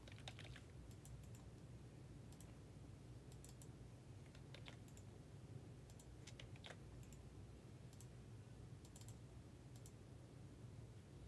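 Faint, scattered clicks of a computer mouse and keyboard: a quick cluster near the start, then single or paired clicks every second or so, over a low steady hum.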